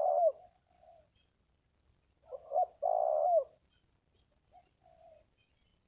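Spotted dove cooing: the end of a loud rolling coo at the start, then a loud coo phrase about two and a half seconds in, ending in a longer burred note that drops in pitch, with a few fainter short coos between.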